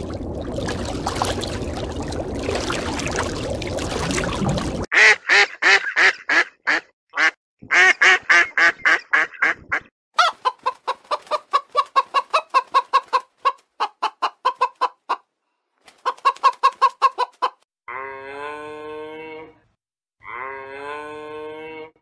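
A steady rushing noise for about five seconds, then a chicken clucking in fast runs of short clucks for about twelve seconds. Near the end come two long calls with wavering pitch, each about a second and a half.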